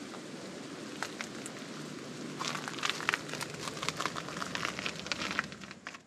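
Footsteps crunching through dry leaves and brush, a quick run of crackles from a couple of seconds in, over a steady outdoor hiss.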